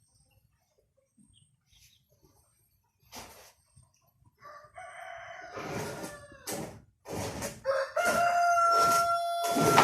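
Six-month-old gamecock stag crowing: a shorter crow about halfway through, then a longer, louder one held on a steady note that drops off at the end. This is a young stag's crow, not yet fully developed.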